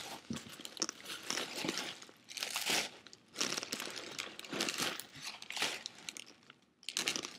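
Crumpled paper stuffing being pulled out of a new handbag, crinkling in several irregular bursts.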